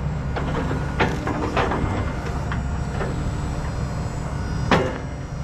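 Diesel engine of heavy equipment running steadily, with a few sharp knocks or cracks. The loudest knock comes near the end.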